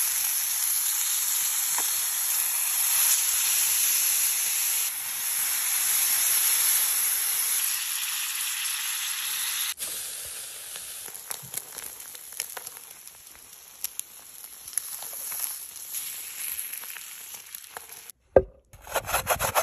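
Onions sizzling hard in a hot cast-iron skillet over charcoal, a steady loud frying hiss. About halfway through it gives way to quieter sizzling and crackling of thin pork slices on a wire grill over charcoal, with scattered clicks. Near the end a sharp knock, then quick rhythmic scraping of ginger being grated on a glass grater.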